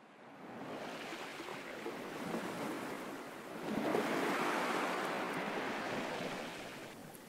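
Sea waves washing ashore, fading in from silence. The surf swells twice, is loudest about four seconds in, and eases off near the end.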